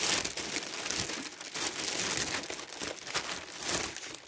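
Plastic packaging crinkling and rustling: a plastic mailing bag and bubble-padded envelopes being handled and pulled apart as a parcel is unwrapped.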